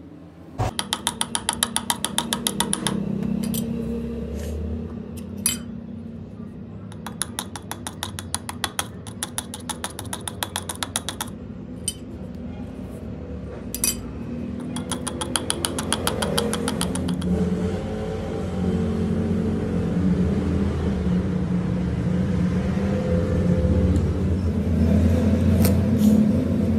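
Metal lathe running with a steady motor hum that grows louder about two-thirds of the way through. Three bursts of fast, even ticking, about eight ticks a second, come in the first half.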